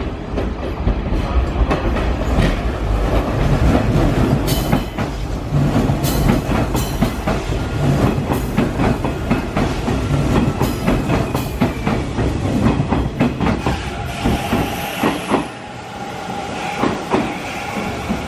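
A Hanshin 5500-series electric local train rolls in through station pointwork and passes close by. Its wheels clatter in irregular clicks over the rail joints and crossings above a steady running rumble. The noise drops off near the end as the last car goes by.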